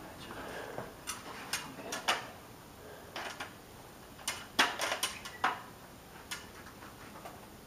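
Sharp metallic clicks and clacks from the parts of a Barrett M82A1 CQ .50 BMG rifle being handled and worked, about a dozen of them at uneven intervals, with a quick cluster near the middle.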